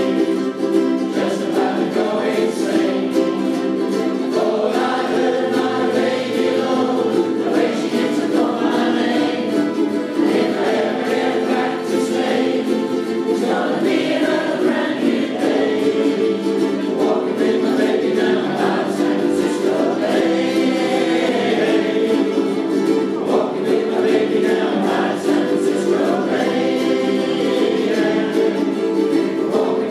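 A ukulele ensemble strumming a song while the players sing together as a group.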